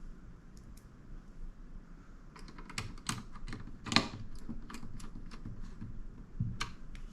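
Small plastic and metal clicks and taps as a fan assembly is handled and fitted back inside a mini desktop PC, with one sharper click about four seconds in.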